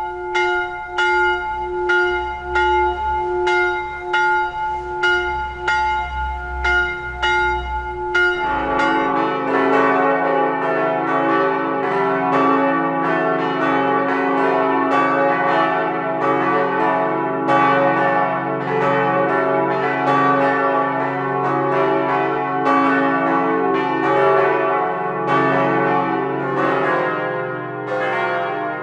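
Church bells ringing. First a single bell tolls at a steady beat of a little under two strokes a second. About eight seconds in it gives way to a fuller peal of several lower-pitched bells ringing together, and the peal changes again near the end.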